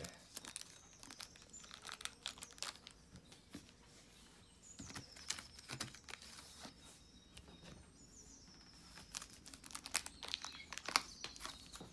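Plastic shrink-wrap on a large book crinkling in scattered crackles as fingers pick at and rub it, more densely near the end.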